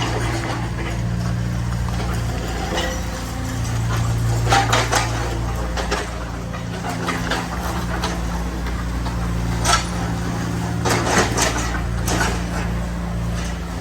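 Demolition machine's engine running steadily, with irregular bursts of clattering knocks and metallic clinks as the structure is broken.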